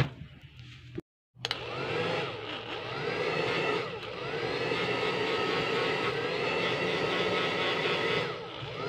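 Hand-held electric blower running steadily as it dries a sheet of wet printed paper. It starts about a second and a half in, after a brief silence, and its pitch sweeps up and down as it is moved back and forth.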